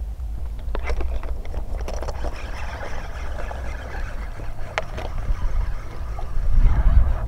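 Water splashing and scattered clicks of rod-and-reel handling as a hooked snakehead is brought in, over a steady low rumble. It grows louder near the end.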